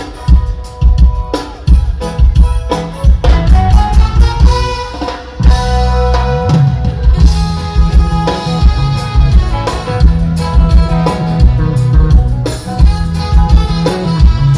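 Live band playing loud through a stage PA during a sound check: a drum kit with kick and snare keeps a steady beat under heavy bass and held melodic notes.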